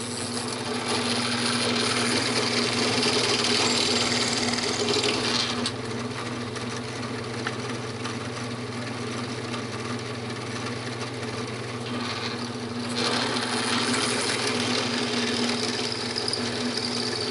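Drill press motor running steadily while a 17/64-inch bit bores an angled hole through plywood, in two passes: cutting noise from about one to five and a half seconds in, and again from about thirteen to seventeen seconds in.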